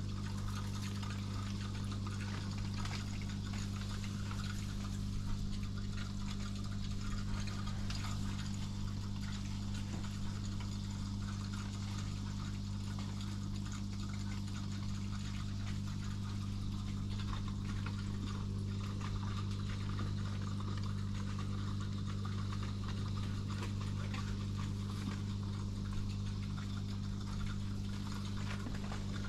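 Aquarium pump humming steadily at a low pitch, with water bubbling and trickling in the tank.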